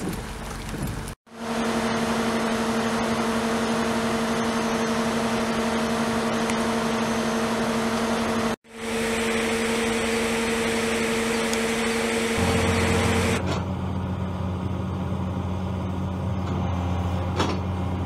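Heavy rain falling on standing floodwater: a steady hiss with a steady low hum underneath. The sound cuts out for a moment about a second in and again about halfway through, and for the last few seconds the hiss is thinner and the hum deeper.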